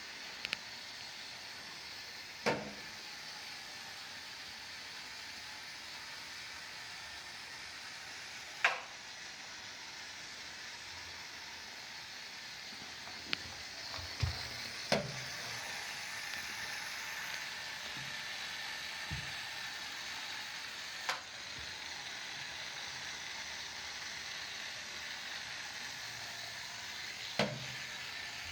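Lego-built robot vacuum running with a steady whirring hiss from its motors, with a handful of sharp knocks a few seconds apart.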